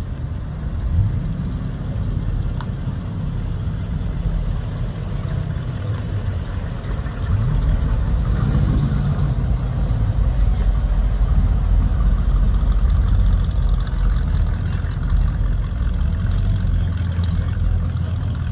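Hot rod coupe's engine running at low speed as the car rolls slowly through a parking lot, with a brief rise in revs about eight seconds in, after which it runs a little louder.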